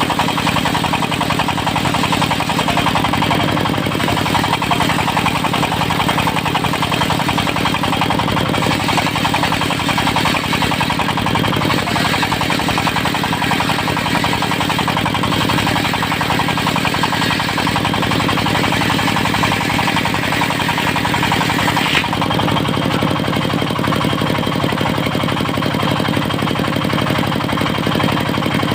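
Diesel engine of a mobile circular sawmill running steadily, with the saw blade cutting teak over it. The higher cutting noise eases off abruptly about three-quarters of the way through while the engine runs on.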